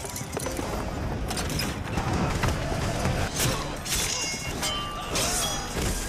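Film battle soundtrack of a cavalry charge: galloping horses' hooves and horses whinnying over music, with sharp hits cutting in during the second half.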